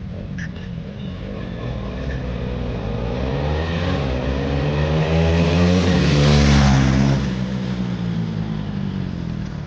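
KTM Duke 390 single-cylinder motorcycles accelerating hard towards and past the roadside, growing louder to a peak about six seconds in, with the engine note dropping in pitch as they go by and then fading away.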